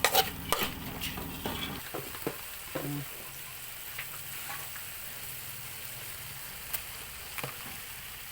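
Food stir-frying in a hot pan, with a steady sizzle. Utensil clinks and scrapes against the pan come in the first two seconds, then a few single clicks.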